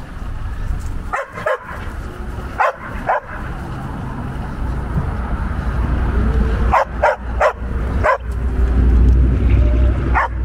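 Dog barking excitedly as it runs beside an accelerating electric bike: about nine short, sharp barks in pairs and threes, over a low rumble that grows louder near the end.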